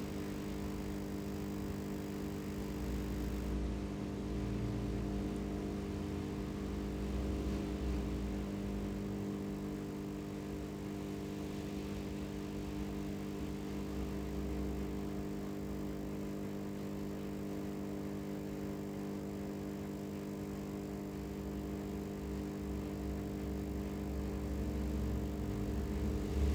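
A steady machine hum made of several held tones, over a low rumble that swells and fades every few seconds.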